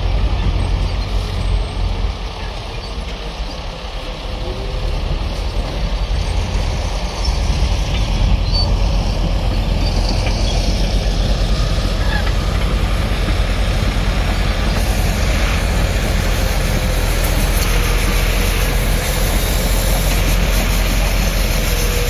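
Heavy diesel earthmoving machinery running steadily, chiefly a crawler bulldozer's engine as it works the freshly tipped sand fill, with other site machines running nearby.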